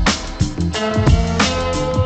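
Background music with a steady beat: held synth or guitar notes over regular drum hits.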